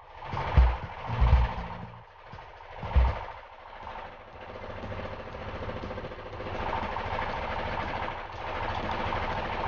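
A few dull knocks in the first three seconds, then a motor engine running steadily, growing louder from about four seconds in.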